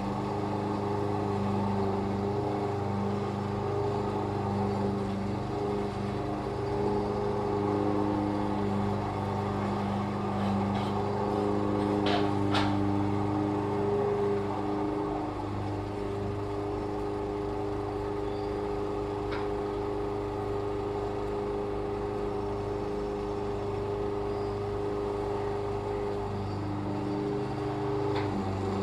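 Petrol lawn mower engine running steadily, dropping slightly in pitch and level about halfway through, with two sharp clicks a little before that.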